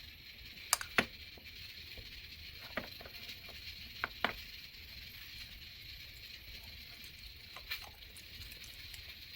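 A handful of sharp, light clicks and knocks, two close together about a second in, two more about four seconds in and one near the end, over a steady faint hiss.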